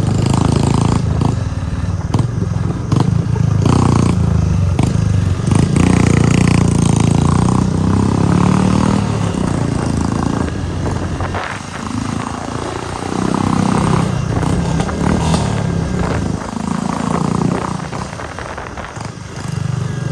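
Royal Enfield Meteor 350's single-cylinder engine running loud through a modified exhaust while being ridden, the note rising and falling with the throttle and easing off twice. Occasional sharp pops come through in between.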